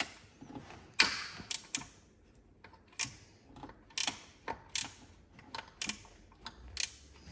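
Irregular sharp clicks and clanks of hand tools and parts being handled while the intake manifold is being taken off. The loudest is a snap about a second in, which trails off in a short hiss.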